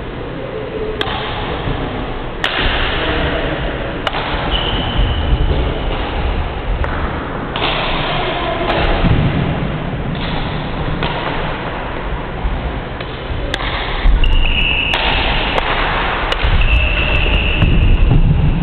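Badminton play on a wooden court: sharp racket hits on the shuttlecock, thickest in a rally near the end, and short high squeaks of shoes on the floor, over a steady low rumble.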